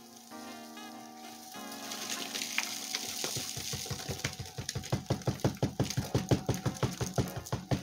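Live Dubia roaches and loose box contents rustling and pattering out of an upturned cardboard shipping box onto cardboard egg crates in a plastic tub. About three seconds in, the box is shaken hard, giving a fast run of knocks, about six a second, that grow louder. Light background music plays at the start.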